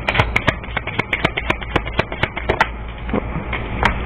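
A deck of reading cards shuffled by hand: a quick run of sharp clicks and card slaps for about the first two and a half seconds, then a few scattered clicks, over a steady low hum.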